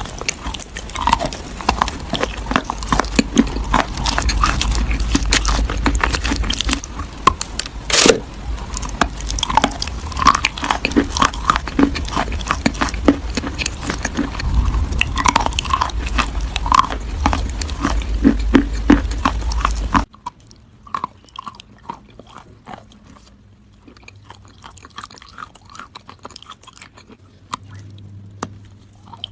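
Close-up crunching and chewing of crisp food, with dense crackling bites. About 20 seconds in, the sound drops suddenly to quieter, sparser chewing.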